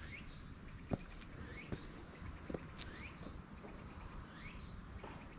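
Footsteps at a walking pace, a sharp step about once a second, over a steady high-pitched insect drone. A short rising chirp repeats every second or so.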